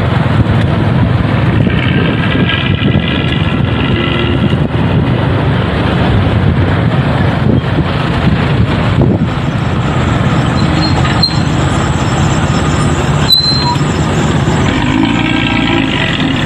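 An old economy bus's engine running through a loud, growling exhaust (knalpot ngorok), a deep steady rumble. A higher pitched sound rides over it for a couple of seconds near the start and again near the end.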